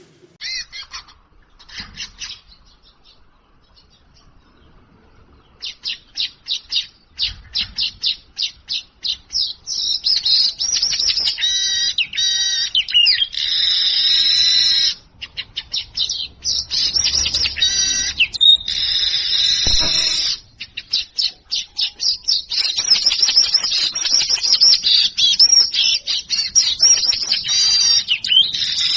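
Manyar (weaver bird) singing: a few short calls, then a series of quick dry ticks that speed up and run into long buzzy, wheezing song phrases, repeated with short breaks.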